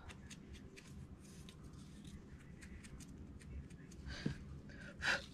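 Faint scratchy rubbing and dabbing of paper in many short, quick strokes, from a small ink pad being worked around the edges of a paper cutout, with a brief louder rustle near the end.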